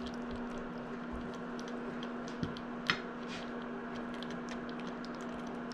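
Pollock stewing in sauce in a pot on an induction cooktop: a soft bubbling hiss full of small ticks and pops, over a steady hum from the cooktop. A couple of light clicks come about halfway through.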